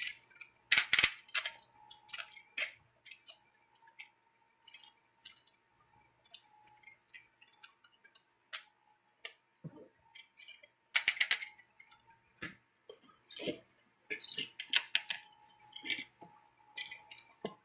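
Plastic parts of a Transformers Nova Prime action figure clicking and clattering as it is handled and posed, its guns swung forward into its hands. There is a quick run of clicks about eleven seconds in and another cluster near the end.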